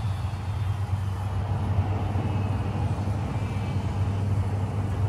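Business jet's turbofan engines rumbling steadily as it rolls on the runway, with a faint high whine.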